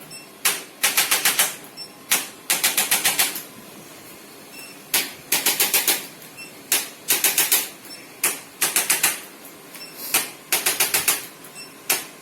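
Sharp mechanical clicks in repeated groups: a single click, then a quick run of five or six, the pattern coming round about every one and a half to two seconds, with a longer pause near the middle.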